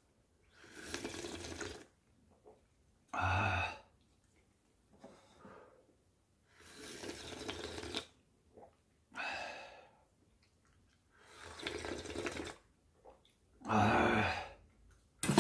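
Hot clam kalguksu broth slurped from a ladle three times, each slurp followed by a short, louder, satisfied "ahh" breath.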